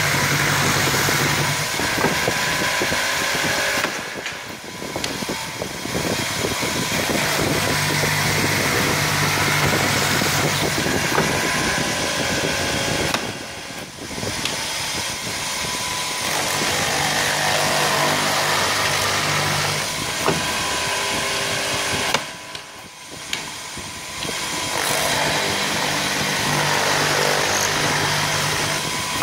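Multi-spindle wood boring machine drilling holes in chair-leg pieces: motors running and bits cutting into wood. The noise drops briefly three times, about every nine seconds, between drilling cycles.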